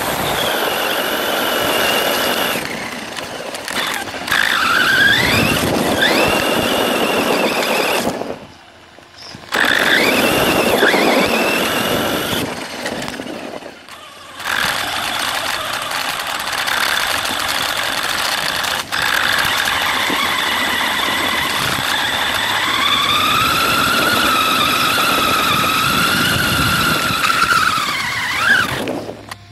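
An RC monster truck's motor and gears whining, the pitch rising and falling as the throttle is worked, over the rough noise of the tyres on gravel. It goes nearly quiet twice when the truck stops, and near the end it holds a long high whine at speed.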